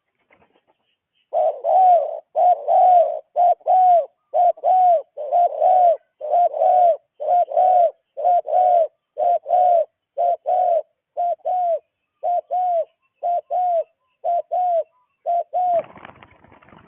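A bird calling in a long series of short arched notes, mostly in pairs, about two notes a second, stopping about a second before the end. A brief rustling noise follows.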